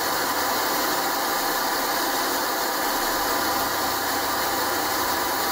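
Steady test noise played through the car's left-channel Gramond Classic Series mid-range and tweeter, so the system can be measured on an analyser for tuning. It is an even hiss with almost no low end, since only the mid-range and tweeter are playing.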